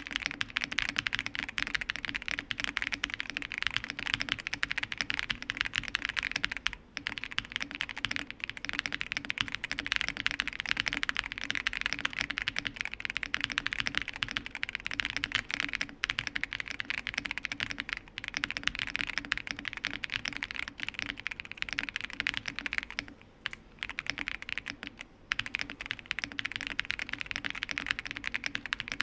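Continuous fast typing on a Zuoya GMK104 full-size mechanical keyboard with Keychron K Pro Silver linear switches, polycarbonate plate, gasket mount, full foam dampening and JKDK bamboo PBT keycaps, giving a thocky keystroke sound. The typing stops briefly a few times, once about seven seconds in and twice more past the three-quarter mark.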